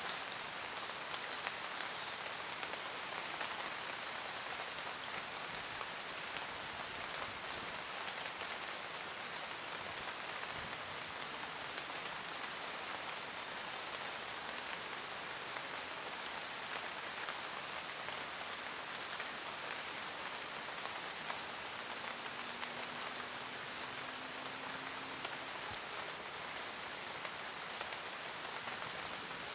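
Steady rain falling in a forest, a dense even hiss of raindrops pattering on leaves and the ground, with many small drop ticks.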